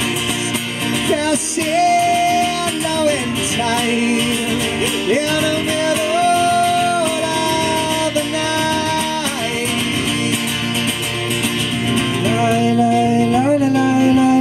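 Acoustic guitar playing with singing, the voice holding long sustained notes.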